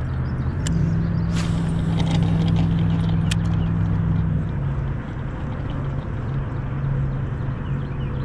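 A motor running with a steady low hum that changes slightly about halfway through, with a few faint clicks over it.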